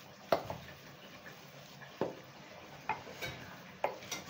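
Wooden spoon mashing and stirring a chicken and potato mixture in a stainless steel bowl, a soft scraping broken by about five sharp knocks of the spoon against the bowl at uneven intervals, the loudest about a third of a second in.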